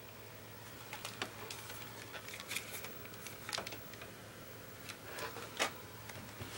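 Light, irregular plastic clicks and taps from pressing the buttons and switches of a fire-damaged Hitachi Hi8 camcorder and handling its body, a few of them sharper than the rest.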